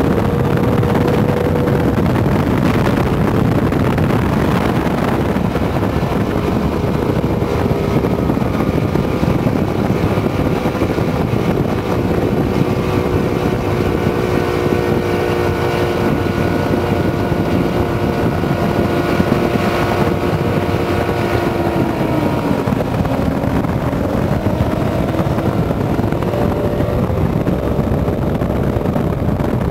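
Two boats' engines running at speed side by side, a steady engine drone under heavy wind and water rush. The engine note dips a little after twenty seconds, then climbs higher.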